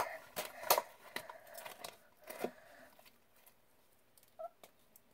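Fluffy slime being squished and kneaded by hand, giving a few sharp sticky clicks and pops in the first three seconds, then growing quieter.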